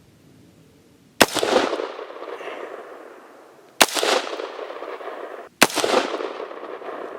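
Three AR-15 rifle shots, about a second in, near four seconds and near six seconds, each a sharp crack followed by a long echo that dies away.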